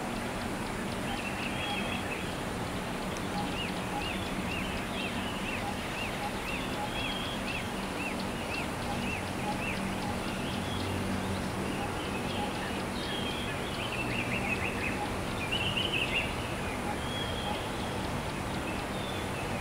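Steady low hum and hiss, with a run of short high chirps repeating about twice a second, then scattered chirps later on.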